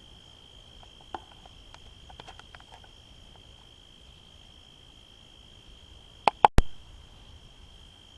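Crickets chirping in a steady high-pitched drone. A few faint ticks come early, and two or three sharp, loud clicks come about six and a half seconds in.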